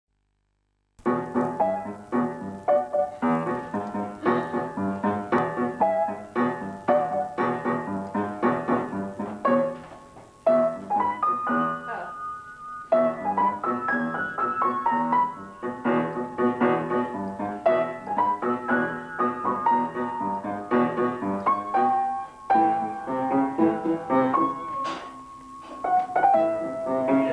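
Piano played by hand, a tune of many quick notes that starts about a second in, with a couple of longer held notes along the way.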